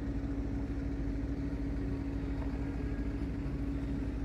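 A steady mechanical hum: one constant low tone with a low rumble under it, unchanging throughout.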